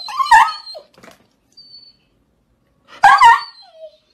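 A dog yelping twice, about three seconds apart, as a cat swats and bites at its face.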